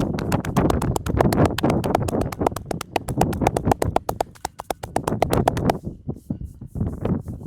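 Rapid percussive tapping of hands on a person's head and scalp during a head massage, a fast even run of slaps that stops about three-quarters of the way through, leaving only a few softer taps.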